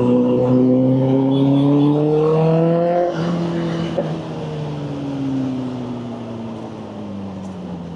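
Motorcycle engine accelerating, its pitch rising for about three seconds, then easing off with the pitch falling steadily as the bike slows.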